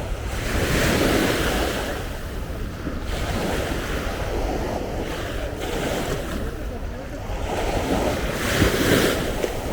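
Sea waves breaking and washing up on a sandy beach, swelling about a second in and again near the end, with wind buffeting the microphone as a low rumble.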